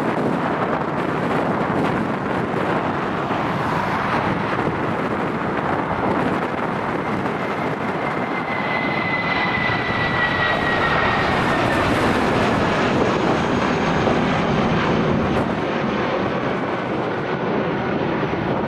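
Airliner's engines at takeoff power, a steady loud rumble with a whine that drops slightly in pitch about halfway through as the aircraft passes.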